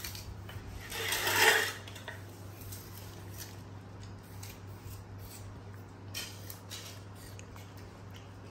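Macaques eating apple slices: faint small crunches and clicks, with one louder rasping scrape lasting about a second, about a second in, over a low steady hum.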